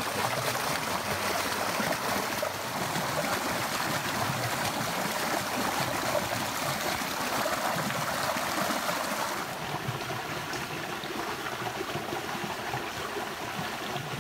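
Small forest creek rushing over a fallen log and through a riffle: a steady rush of flowing water, a little softer about two-thirds of the way through.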